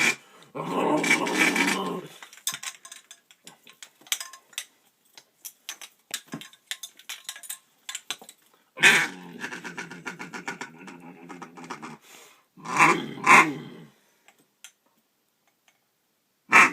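A duck call blown in buzzy, steady-pitched blasts, the call named 'the motorboat': one long blast about half a second in, a longer one of about three seconds near the middle, then two short blasts and a brief one near the end, with small clicks between.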